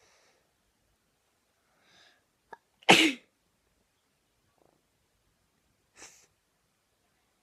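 A girl sneezes once, loud and sudden, about three seconds in, after a short in-breath; the sneeze is brought on by tickling the inside of her nostril with a hair grip. A short faint breath follows near the end.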